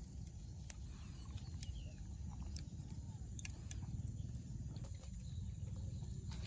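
Fingers picking and tearing fibrous husk from the top of a green coconut: scattered small clicks and crackles over a steady low rumble.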